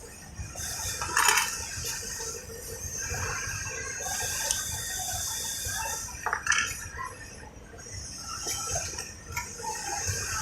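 Handling noise on a single-needle sewing machine as it is tilted up: light metallic clinks and knocks over a steady hiss, two of them louder, about a second in and again near the middle.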